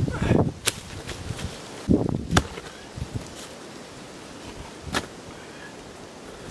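Volcanic rocks being handled and set down: dull thuds and sharp clacks of stone on stone, several in the first two and a half seconds and one more clack about five seconds in.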